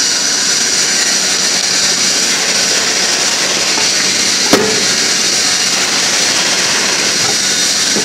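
Steady loud machinery noise, hiss-like and even throughout, with one sharp metallic knock about four and a half seconds in that rings briefly: metal gearbox parts knocking together as the housing is worked into place.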